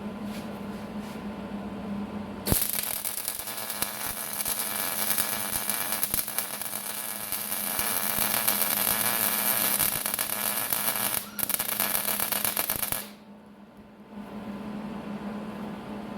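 Electric arc welding on steel: a steady crackling sizzle of the weld arc starts sharply about two and a half seconds in, breaks briefly near eleven seconds and stops about thirteen seconds in. A steady hum sounds underneath throughout.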